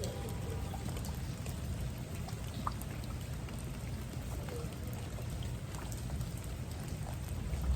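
Steady rain falling, with scattered drop ticks over an even hiss and a steady low rumble underneath.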